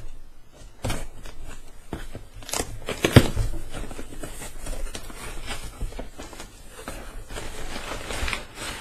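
A cardboard parcel and its packaging being opened and handled: rustling and scraping, broken by several knocks, the sharpest about three seconds in.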